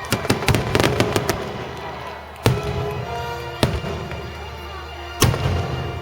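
Firework shells bursting: a quick cluster of sharp bangs in the first second and a half, then three single loud bangs spaced a second or more apart, over orchestral music.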